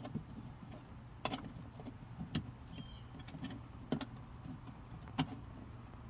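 Clicks and knocks from parts of a van's rear door lock being put back together, four sharp ones roughly a second apart, over a steady low hum.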